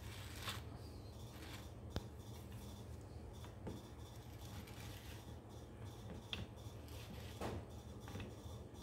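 Faint metal clicks and scrapes as a grease cap is threaded into a tractor's front wheel hub and turned with a pipe wrench. One sharp click about two seconds in is the loudest, with a few lighter ones later.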